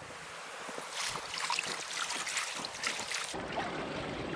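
Water trickling and lapping with small splashes, and wind on the microphone; the sound changes abruptly about three seconds in.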